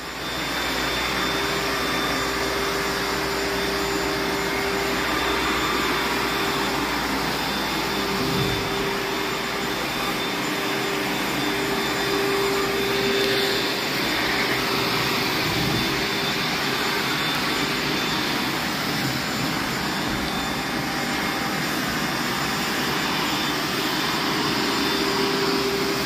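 Vacuum cleaner running steadily with a Pro-Blade wall-cleaning attachment on its wand, a steady rush of suction with a hum and a faint high whine underneath. It comes up to full strength in the first second.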